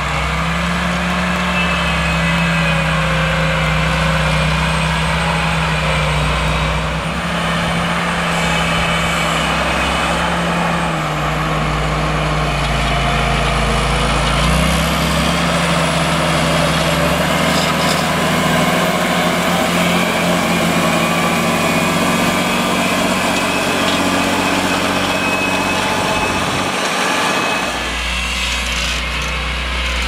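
John Deere 8320RT tracked tractor's 9-litre six-cylinder PowerTech diesel running under load while pulling a semi-mounted reversible plough. Its engine note drops for a few seconds near the middle, then rises again.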